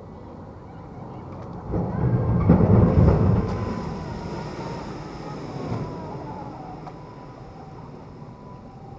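A boat on the harbour throwing up a large white spray: a sudden rush of splashing water and engine noise about two seconds in, loudest for a second or so, then fading slowly as it moves away.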